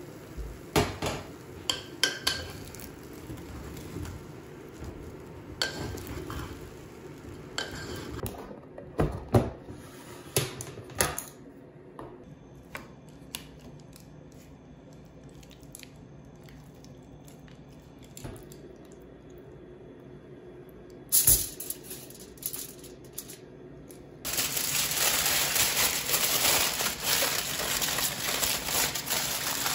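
Scattered clinks and knocks of kitchenware, with a pot lid and tongs being handled, over the first ten seconds or so and again briefly a little past two-thirds through. From about three-quarters of the way in, aluminium foil crinkles loudly and continuously as it is folded and pressed around a piece of fish.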